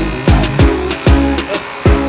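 Background electronic music with a heavy beat: deep bass-drum hits about twice a second, each sliding down in pitch, with quick high ticks above them.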